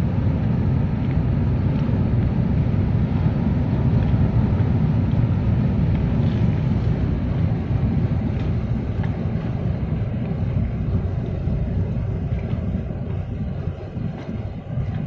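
Low, steady rumble of a large container ship under way in the harbour, easing off a little near the end.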